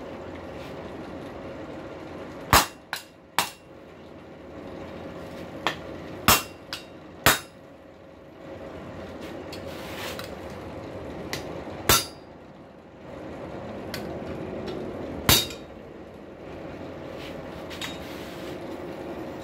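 Irregular sharp knocks of a wooden mallet striking a hot, twisted rail spike on a steel anvil, straightening the twist, about nine blows with long gaps between them. A steady background hum runs underneath.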